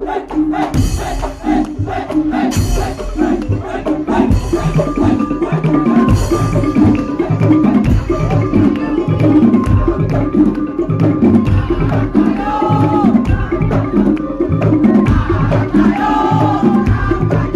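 Madurese tong-tong (ul daul) ensemble playing: wooden slit drums and drums beating a fast, dense rhythm under a sustained melody line.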